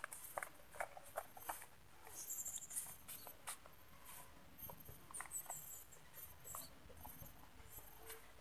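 Faint footsteps and rustling on sandy ground strewn with dry leaves, with short high chirps twice, about two and five seconds in.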